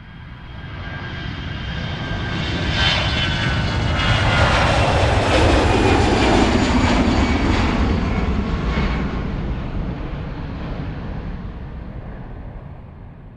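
A fixed-wing airplane flying past. Its engine noise swells to a peak about five seconds in, the pitch drops as it passes, and then it fades away.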